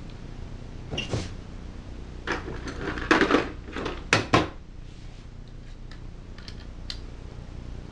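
Metal clinks and knocks of a piston ring compressor being handled, set down and picked up again: scattered knocks with a louder cluster of clatters about three to four and a half seconds in, then a few light ticks.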